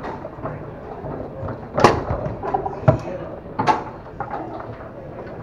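Foosball in play on a Tornado table: three sharp clacks of the ball being struck by the plastic men and rods, starting about two seconds in and about a second apart.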